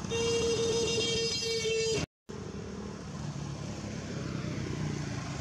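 A vehicle horn sounds in one steady held note for about two seconds, with a couple of brief breaks, then cuts off abruptly. Afterwards a motorbike engine and passing road traffic run.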